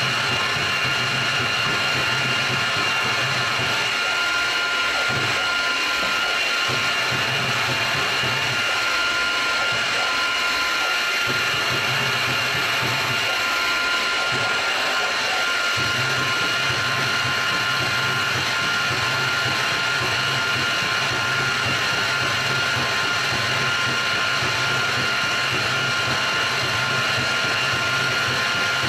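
CNC milling machine spiral-cutting a pocket into a pulley with a 1/4-inch four-flute end mill at about 3,000 RPM. A steady machining whine made of several high tones, over a lower hum that cuts out briefly a few times in the first half.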